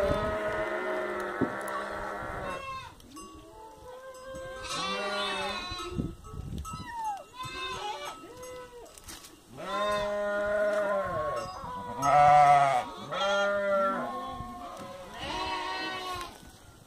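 Goats and sheep in a pen bleating over and over, several animals calling over one another at different pitches. A long call opens, and the loudest call comes about twelve seconds in.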